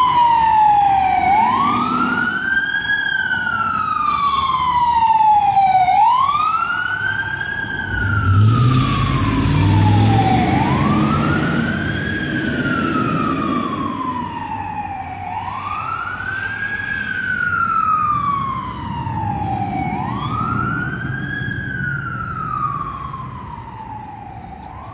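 Fire engine siren sounding a slow wail, its pitch rising quickly and falling slowly about every four and a half seconds, five times over, growing slowly fainter toward the end as the truck drives away. A low rumble swells briefly about eight seconds in.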